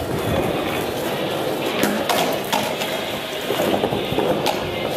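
Skateboard wheels rolling over stone paving tiles, with a few sharp clacks from the board.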